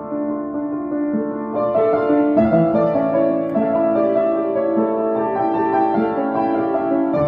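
Piano music of long, held notes; more notes join and it grows louder about two seconds in.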